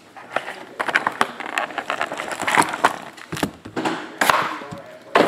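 Plastic shrink wrap crinkling while a cardboard trading-card box is slid open and handled: a run of irregular crackles, scrapes and sharp knocks.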